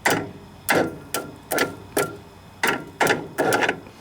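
A screwdriver repeatedly bridging the two copper posts of a riding mower's starter solenoid, with sharp snaps about two a second, each with a brief jolt of the starter as the engine tries to turn over. The battery has power to reach the starter this way, which the owner takes to mean the solenoid is faulty.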